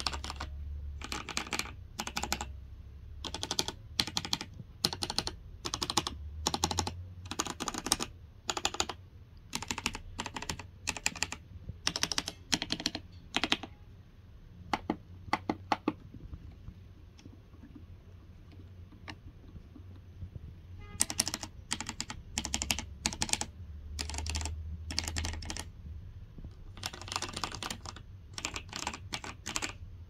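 Newmen GM326 mechanical keyboard being typed on: quick runs of keystrokes and spacebar taps, with a quieter stretch of scattered clicks around the middle before the fast typing resumes.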